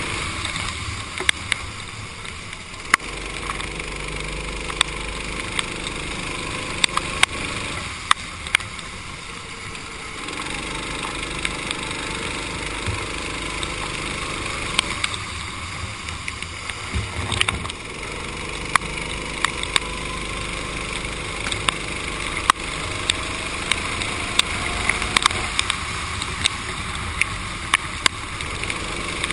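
Racing kart engine heard from on board, the revs dropping off and climbing again about four times as the kart brakes into corners and accelerates out, over a hiss of tyres and spray on a wet track. Frequent sharp ticks run through it.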